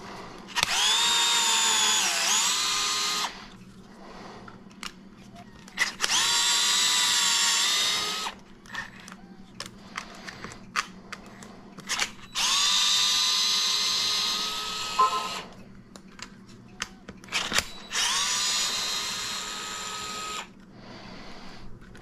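DeWalt cordless screwdriver running in four short bursts of a few seconds each as it undoes screws, its whine dipping in pitch briefly during the first burst, with small clicks between the bursts.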